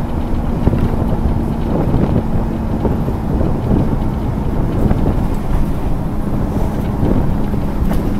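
Scania OmniCity N230UD double-decker bus's five-cylinder diesel engine running while the bus is under way, heard from inside the lower deck: a steady engine drone over heavy road rumble, the pitch easing slightly near the end.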